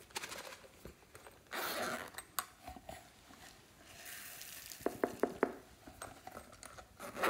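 A ridged plastic container handled and tipped, glitter and small sprinkles pouring and pattering into a glass bowl, with a quick run of four or five sharp clicks about five seconds in.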